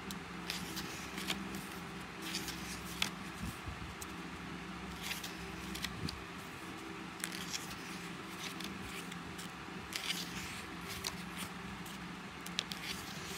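Pages of a small hardcover picture book being turned and handled: paper rustling and soft flicks and taps every second or so, over a steady low hum.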